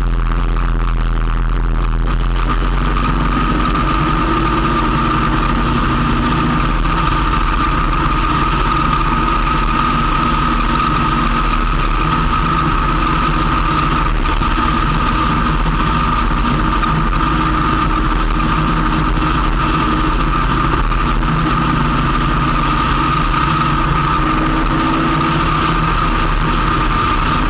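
Motorcycle engine running steadily at cruising speed, heard from a camera mounted low on the bike, with a steady high whine over the engine hum.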